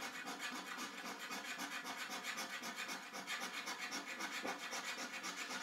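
A coin scraping the scratch-off coating of a paper lottery scratchcard in quick, even back-and-forth strokes.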